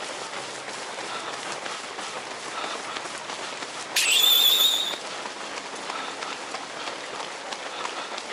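Many runners' shoes pattering on asphalt in a dense marathon pack, a steady rain-like patter. About four seconds in, a shrill, wavering whistle sounds for about a second, louder than everything else.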